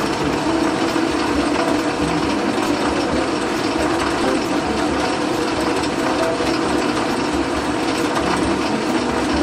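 Band saw running steadily, its blade cutting through an aluminium cam cover.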